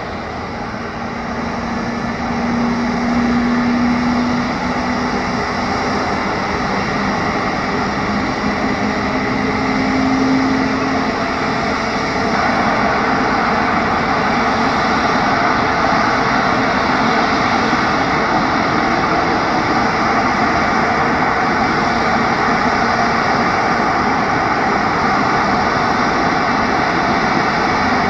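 Embraer E190-E2's Pratt & Whitney PW1900G geared turbofan engines running on the ground, a steady jet engine rush that swells over the first few seconds and grows a step louder and brighter about twelve seconds in.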